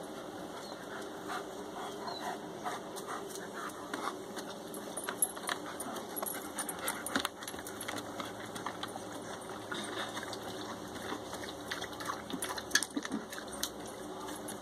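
Two German Shepherds playing, with scuffling and scattered short clicks and a few sharper knocks, the loudest near the end.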